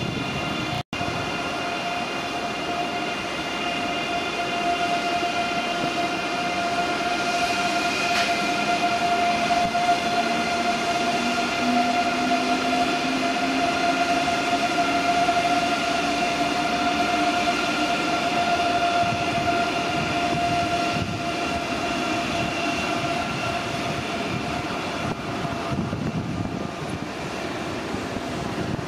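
ICE high-speed electric train running past and away, its electric drive giving a steady whine with a lower tone rising in pitch midway as it gathers speed.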